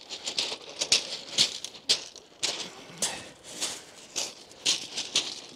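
Footsteps crunching on shingle pebbles, about two steps a second.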